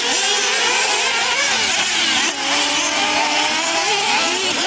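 Several nitro RC buggies' small two-stroke glow engines revving at once, many high whining pitches rising and falling over each other as the cars throttle up and brake around the track.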